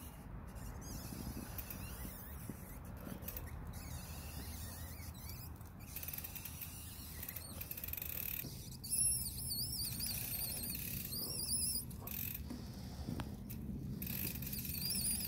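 OneUp composite flat pedal squeaking as it is spun by hand on the crank: a high, wavering squeal that comes and goes, clearest in the second half. The pedal is defective and not spinning freely after only about four rides.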